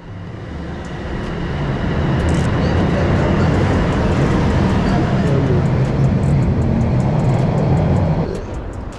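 Toronto Rocket subway train running through the station: a loud rumble of wheels and traction motors that builds over the first two seconds, holds steady, then falls away about eight seconds in.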